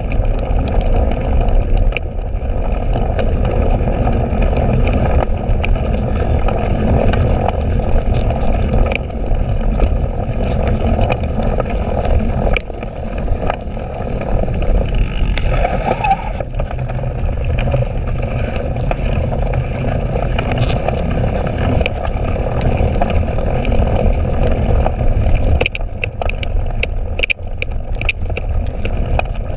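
Cyclocross bike ridden hard over rough, muddy grass, heard through a handlebar-mounted camera: a steady, loud rumble of riding noise, with sharp clicks and rattles from the bike near the end.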